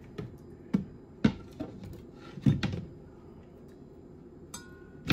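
A few light knocks and taps as a cutting board is tipped against a stainless steel mixing bowl to scrape chopped herbs and garlic into it, then set down on a glass cooktop.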